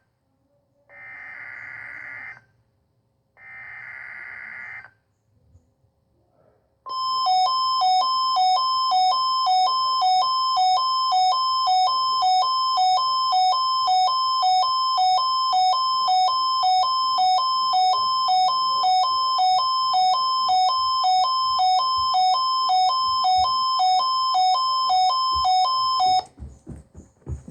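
The end of three EAS/SAME digital header data bursts on NOAA Weather Radio: two buzzy, chirring bursts of about a second and a half each. After a short pause comes a loud electronic alert tone that alternates between a high and a low pitch about one and a half times a second. It lasts around nineteen seconds and cuts off suddenly near the end.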